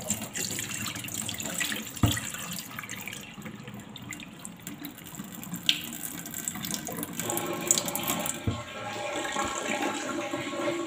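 Kitchen tap running into a plastic bowl of rice as it is rinsed, the cloudy rinse water spilling off into a stainless-steel sink. There is a single sharp knock about two seconds in.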